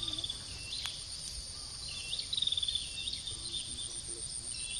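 Insects giving a steady high-pitched buzz, with a short rapid chirping trill that comes back about every two and a half seconds, three times. One faint click a little under a second in.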